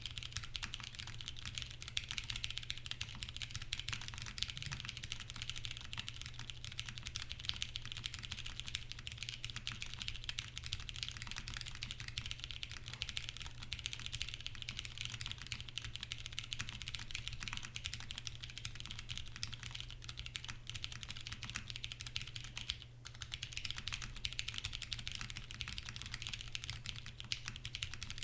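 Continuous typing on a custom 60% mechanical keyboard, the TGR x Singa Unikorn, with lubed Cherry MX Brown tactile switches (films and 55g TX springs) on a polycarbonate plate with DCS keycaps. The keystrokes run densely together, with a brief pause about 23 seconds in.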